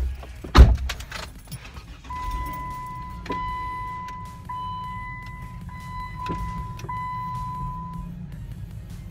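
A car door thumps shut about half a second in. From about two seconds the car's low engine rumble sets in under a steady high electronic tone that lasts about six seconds, broken briefly a few times.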